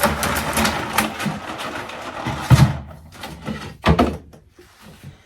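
Containers and jars being moved around on refrigerator shelves: about three seconds of rustling and clatter, a heavy clunk about two and a half seconds in, and a sharp knock near four seconds.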